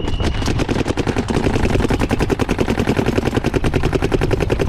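Paintball marker firing a rapid, steady stream of shots, more than ten a second, with wind rumbling on the microphone.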